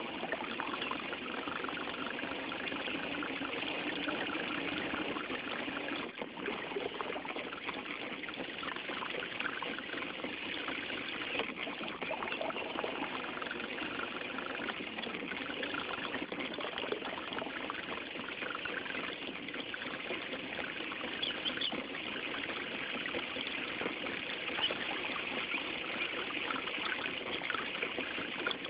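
Water splashing and trickling steadily along the hull of a small handmade electric RC boat under way, heard close up from on board.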